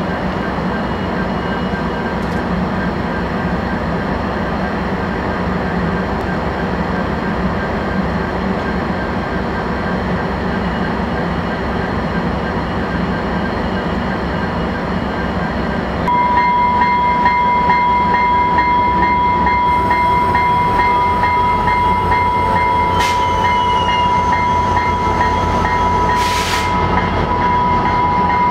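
Diesel locomotive of a commuter train idling steadily. About halfway through, a steady high tone joins it and the sound gets louder. Near the end the engine's pitch rises as the train starts to pull out.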